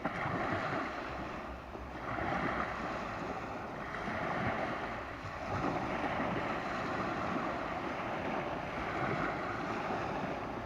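Sea of Azov waves washing onto the shore, the surf swelling and easing every couple of seconds, with wind buffeting the microphone.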